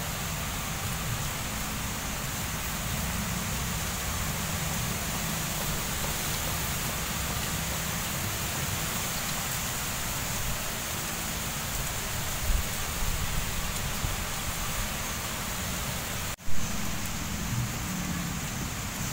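Steady outdoor background noise: an even hiss over an irregular low rumble. About sixteen seconds in it cuts out for an instant, then a short loud thump.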